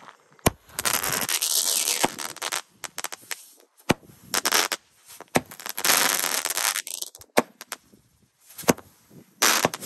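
A small 7-shot toot-and-twirl firework cake firing its shots one after another: several sharp cracks, each followed by a burst of hissing lasting up to about a second and a half.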